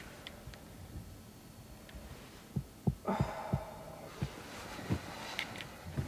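A few soft, low, irregular thumps of someone shifting on a sofa, with a breathy exhale about three seconds in, over quiet room tone.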